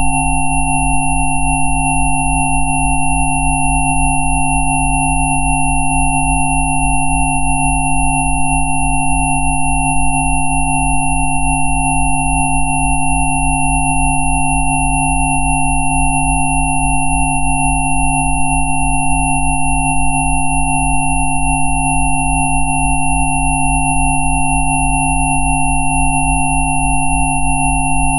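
A Rife-frequency track of synthesized sine tones: several steady pure tones layered at once, from a low hum to a thin high whine. The lowest tone pulses evenly a few times a second, and nothing else in the mix changes.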